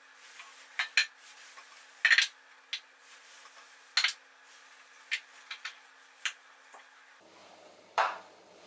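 Glass storage jars being set down on wooden shelves and against one another: about a dozen sharp clinks and knocks at uneven intervals.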